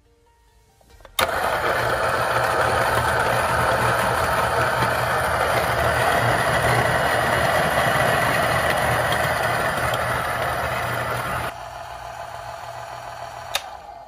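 Niche Zero conical burr coffee grinder switching on about a second in and grinding a single dose of espresso beans: a steady, loud grinding whir over a low motor hum. About ten seconds in it falls to a quieter whir as the last beans clear the burrs. A sharp click comes near the end, and then the motor stops.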